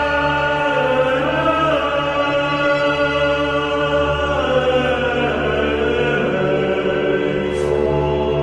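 Music: sustained choir-like chords held over a steady low pulsing drone, shifting slowly, with a brief high swish near the end.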